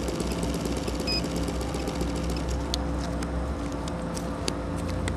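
ASP 91AR model glow engine idling slowly on a radio-control plane on the ground, a steady low running note with sharp ticks through it; the note shifts slightly about three and a half seconds in.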